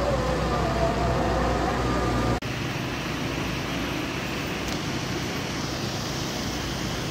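Street traffic noise: a vehicle's engine rumbling for about the first two seconds, then an abrupt cut to a steady hiss of traffic and water on a wet street.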